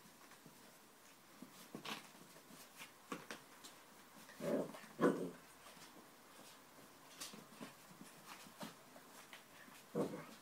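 Excited puppy giving short whimpering yelps, two close together about halfway through and one near the end, amid light clicks and taps on the wooden floor as it scampers around its treat.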